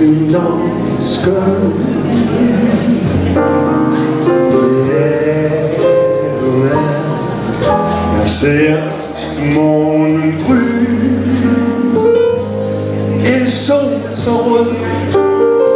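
Small trad jazz band playing a swing number, a man singing into a microphone over double bass, piano and drums.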